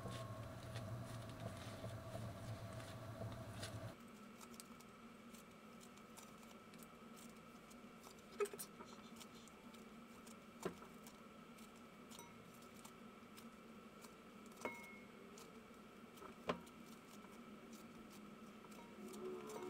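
Faint, soft handling noises of sticky bread dough being stretched and folded by hand over a glass bowl, with a few light sharp clicks scattered through. Background music plays at first and cuts off about four seconds in.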